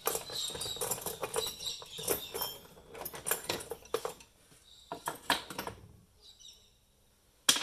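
Irregular clicking and rattling of small plastic and metal parts and tools being handled while a coffee grinder is taken apart, thinning out after about five seconds. A single sharp click comes near the end.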